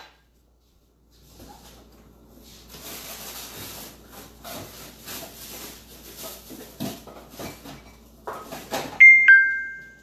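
Off-camera clatter and rustling as kitchen items are handled, with a few louder knocks near the end. Just before the end comes a clear two-note ding-dong chime, a higher tone then a lower one.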